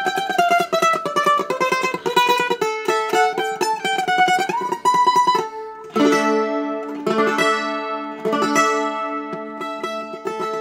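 Ibanez 525 mandolin played with a pick: a single-note melody in fast repeated picking strokes, a brief break about five and a half seconds in, then strummed chords left to ring.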